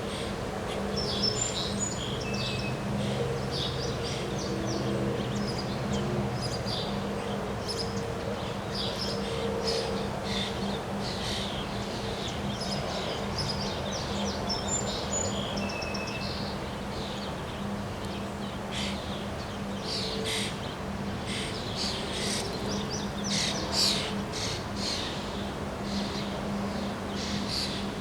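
Birds chirping and calling over and over, over a steady low hum.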